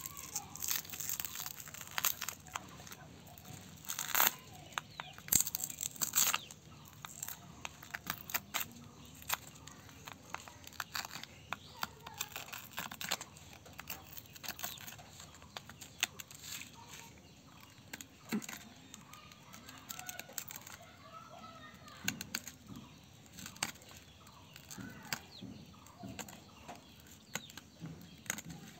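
Shattered tempered-glass screen protector crackling and snapping in many small sharp cracks as it is pried up and peeled off a phone screen, densest in the first several seconds.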